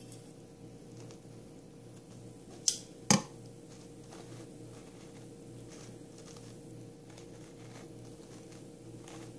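Faint rustling of stiff starched-satin flower petals being fluffed and shaped by hand, over a low steady hum, with two sharp clicks close together about three seconds in.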